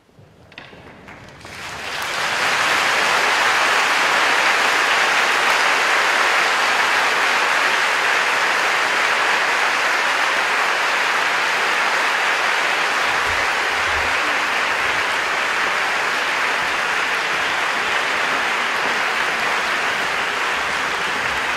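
Large audience applauding: a few scattered claps at first, then full, steady applause from about two seconds in.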